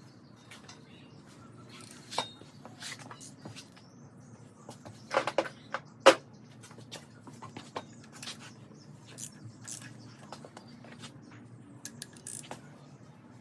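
Hand tools and metal engine parts clicking and clinking as they are handled, with a few sharper knocks about 2, 5 and 6 seconds in, over a low steady hum.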